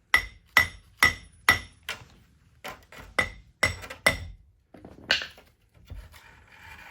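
Hammer blows on steel, about nine sharp ringing strikes at roughly two a second with a short pause about two seconds in, then a lighter knock and some scraping. The hammering knocks a hub assembly loose from the steering knuckle of a Dana 60 front axle.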